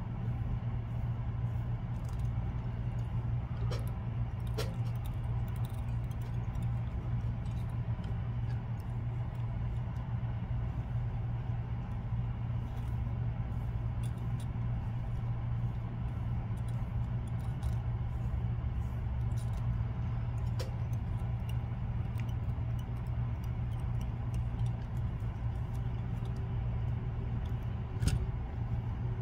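Steady low background hum, with scattered faint ticks and one sharper tick near the end.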